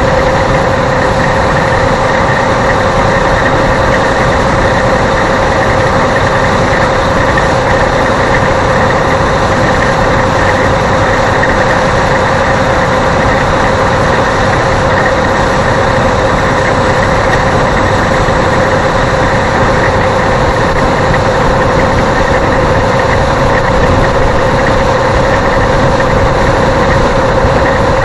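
Steady engine drone and road noise inside a vehicle's cab cruising at highway speed, with a constant hum over it.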